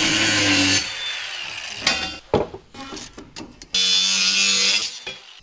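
Angle grinder with a cut-off wheel cutting perforated metal angle. A short cut opens, then the wheel's whine falls as it winds down and a few knocks follow. A second cut of about a second comes near the end.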